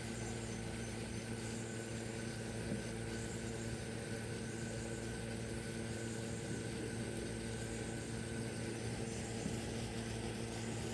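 Steady mechanical hum with several constant tones, unchanging throughout.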